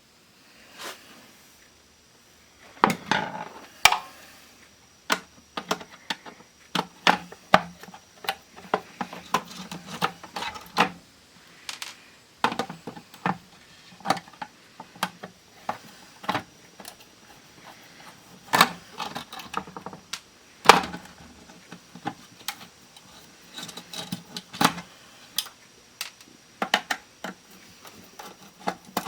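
Irregular clicks, taps and light clatter of small tools and hard parts being handled, with a few louder knocks around three seconds in and near twenty-one seconds.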